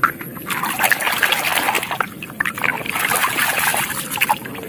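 Muddy puddle water splashing and sloshing in uneven bursts as a toy truck is swished back and forth through it by hand to wash off the mud.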